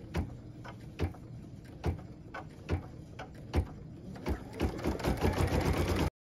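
Computerized embroidery machine stitching a tack-down line on felt appliqué. Single needle clicks come about a second apart at first, then quicken into a steady, fast run of stitches about four and a half seconds in. The sound cuts off suddenly near the end.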